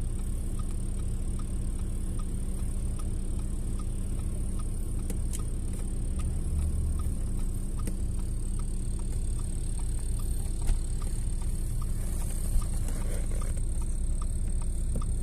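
Car cabin noise while driving: a steady low rumble of engine and tyres on the road, with two brief knocks in the second half.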